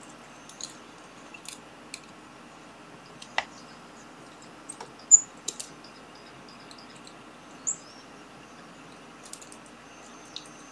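Scattered small clicks and taps of jumper wires and a small circuit board being handled and rewired by hand, over a faint steady hum. Two short high-pitched chirps stand out, the louder one about five seconds in.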